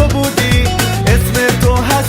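Upbeat Latin-style background music with a steady beat, bass and melody.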